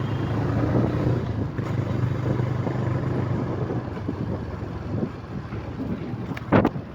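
Vehicle engine running with no exhaust fitted, a steady low drone that weakens after about four seconds. A short loud knock comes near the end.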